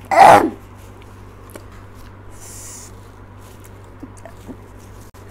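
A girl's short, loud nonverbal vocal burst at the start, sliding down in pitch, then a soft hissing breath about two and a half seconds in: her reaction to the burn of extra-spicy noodle sauce.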